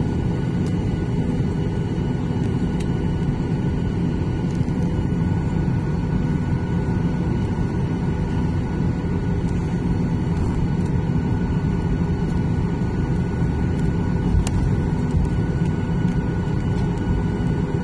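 Boeing 737-800's CFM56 turbofan engines heard from inside the cabin over the wing during taxi: a steady low rumble with a faint, even whine.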